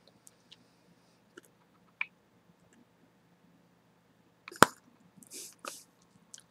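A bubble-gum bubble popping with one sharp, loud snap about four and a half seconds in. Before it there are a few faint mouth clicks, and after it soft wet mouth sounds as the burst gum is drawn back in.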